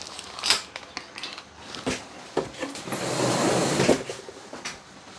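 Handling noises from plastic RC boat parts: several light clicks and knocks, and a rustling scrape about a second long near the middle.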